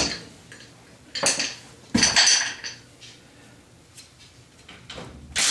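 Metal tools and parts clinking and clattering against each other in a few separate bursts.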